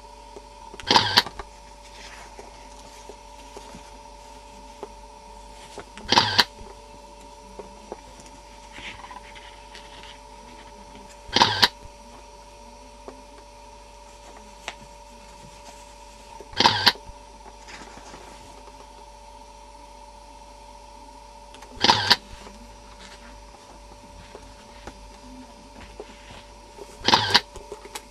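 A short mechanical clack repeating about every five seconds, six times, over a steady electrical hum.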